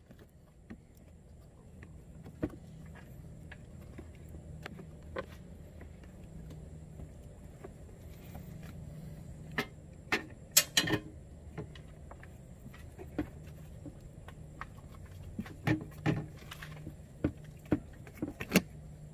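Scattered light clicks, taps and rattles of plastic and metal parts being handled on an ATV's frame and airbox, with a louder cluster of rattles about ten seconds in, over a steady low hum.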